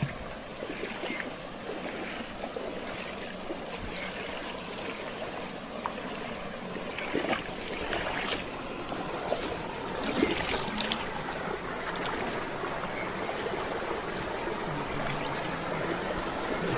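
Moving water: a steady rush of flowing water with scattered small splashes, a few louder ones clustered in the middle.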